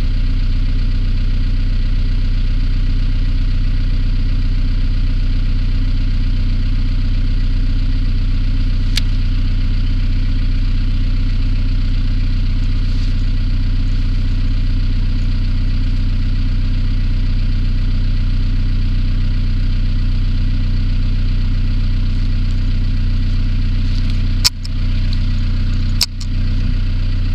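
Vehicle engine idling steadily, with two sharp knocks about a second and a half apart near the end.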